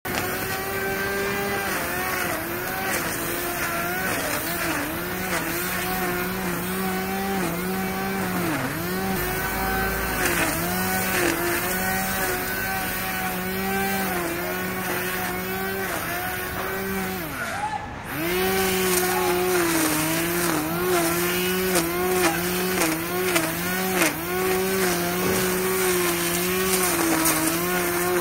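Machine motor on a construction site giving a steady whine that dips briefly in pitch again and again, growing louder about eighteen seconds in.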